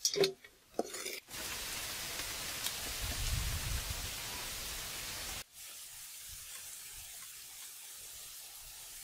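Cooked palm grubs tipped from a wok into a metal bowl, clattering briefly, followed by a steady hiss that drops quieter about halfway through.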